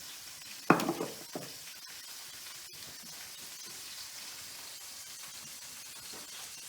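Food sizzling steadily in a fry pan on the stove, with one sharp knock about 0.7 s in and a smaller one soon after.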